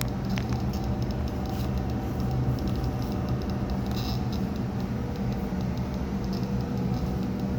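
A steady low mechanical hum made of several even tones, with a few faint ticks over it.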